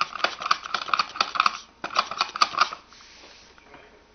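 Hard plastic baby toys clicking and rattling as they are handled, quick irregular clicks for about three seconds before dying away.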